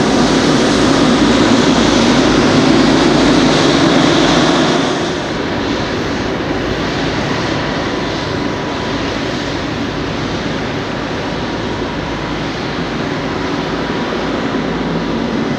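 Boeing 777-300's Rolls-Royce Trent jet engines running at taxi power as the airliner rolls along the taxiway: a steady rush with a faint thin whine. It drops in level about five seconds in.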